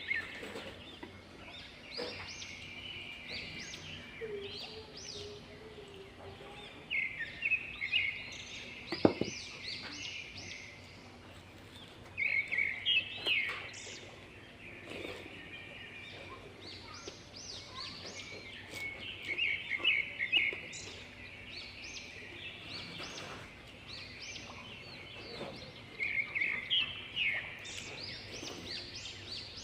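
A bird singing outdoors: bursts of rapid chirping notes that recur every five to seven seconds. A single sharp click about nine seconds in.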